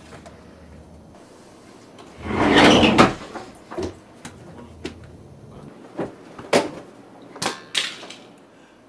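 Knocks and bumps of someone clambering in through an open window, with a loud rush of noise about two seconds in, then about half a dozen separate knocks.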